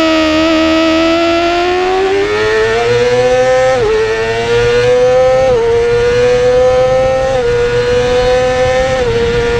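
Yamaha YZF-R6 inline-four racing engine at high revs under hard acceleration. Its pitch climbs for the first few seconds, then dips briefly four times, about two seconds apart, as it is shifted up along the straight.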